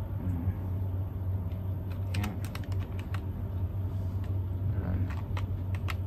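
Light plastic clicks and taps from handling a Logitech wireless keyboard and fitting its batteries, a cluster about two to three seconds in and a few more near the end, over a steady low hum.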